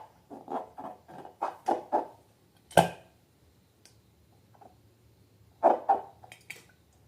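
Hands working balloons and slime: a quick series of short squishy, squeaky sounds, then a sharp click about three seconds in, then two more squishes near the end.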